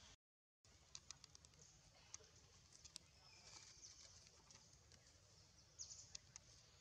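Near silence: faint outdoor ambience with a few small, sharp clicks scattered through it, and a brief gap of total silence just after the start.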